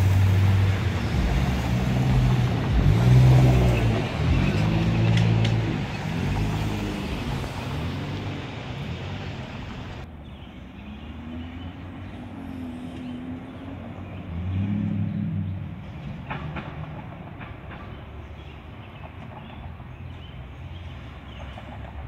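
A SEPTA New Flyer D40LF diesel transit bus drives past, its engine note rising and falling. After about ten seconds this gives way to quieter street traffic, with a Kawasaki LRV trolley approaching along street track and a few light clicks.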